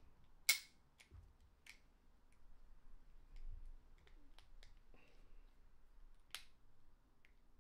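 Sparse small clicks of metal parts as a pin is worked by hand into an Air Arms CD air rifle trigger block. The sharpest click comes about half a second in and another late on, with fainter ones between.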